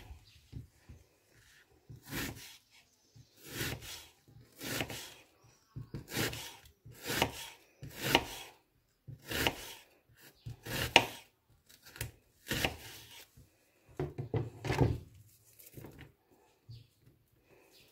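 Kitchen knife slicing a red onion on a wooden cutting board: about a dozen separate cuts, roughly one a second, each ending on the board. The cutting stops about 15 s in, leaving only faint handling as the slices are pulled apart.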